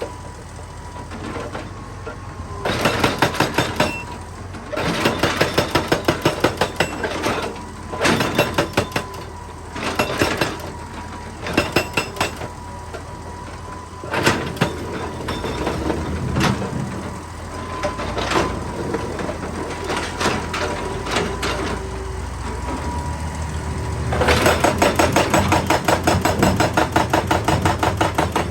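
Excavator-mounted hydraulic rock breaker hammering rock in repeated bursts of rapid, evenly spaced blows, with a longer unbroken burst near the end, over the excavator's engine running steadily and a thin steady whine.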